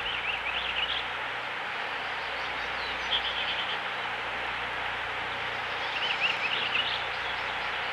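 Outdoor nature ambience: a steady hiss with birds chirping in short phrases near the start, about three seconds in, and again around six to seven seconds in.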